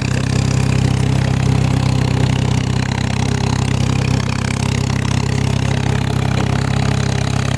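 Tractor engine running steadily under load, at an even, unchanging pitch.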